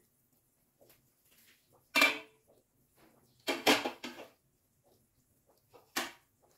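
Aluminium pot lid being taken off and set down: a metallic clank with a short ring about two seconds in, a louder clatter of knocks a moment later, and one more knock near the end.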